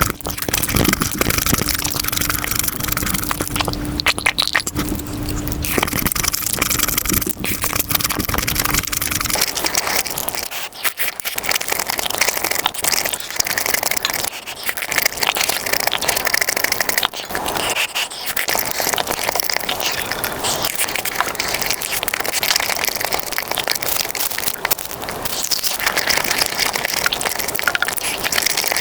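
Eating sounds: dense crunching and crackling of food being chewed and handled. A steady low hum runs underneath for about the first nine seconds, then stops.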